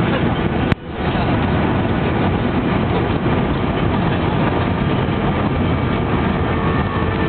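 Loud, steady cabin noise of an Airbus A319 rolling out on the runway after touchdown: the engines and rushing air heard from inside, with a sharp click and a brief dropout under a second in.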